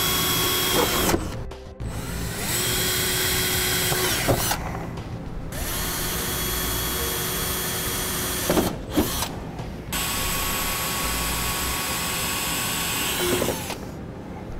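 Cordless drill with a small bit boring holes through the truck's plastic under-hood panels, to make attachment points for zip ties. It runs in four steady whining bursts with short pauses between.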